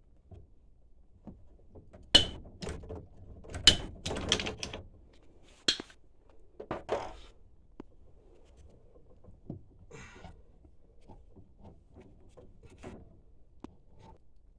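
Metal PEX crimping tool being handled and closed on crimp rings: a run of sharp metallic clanks and clicks, some with a brief ring, loudest between about two and six seconds in, followed by lighter scattered ticks.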